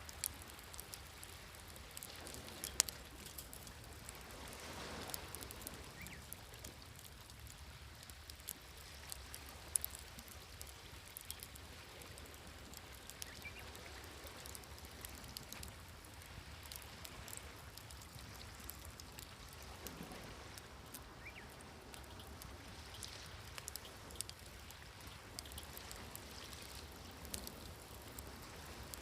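Wood campfire crackling, with frequent small sharp pops, over the soft wash of waves that swells gently now and then.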